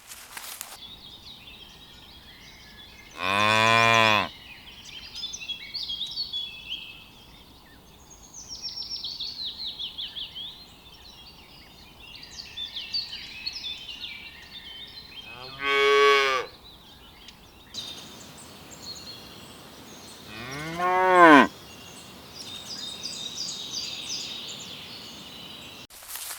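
A cow mooing three times, each moo about a second long and rising then falling in pitch. Birds chirp steadily throughout.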